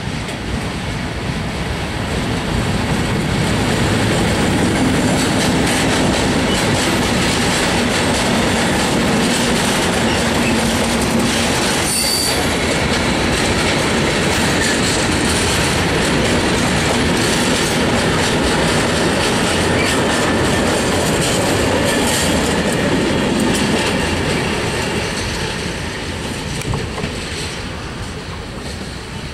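Diesel-hauled freight train of tank wagons passing close by, wheels clattering over the rail joints. The noise builds over the first few seconds, holds steady as the wagons roll past, then fades near the end as the last wagon moves away. A brief high wheel squeal comes about twelve seconds in.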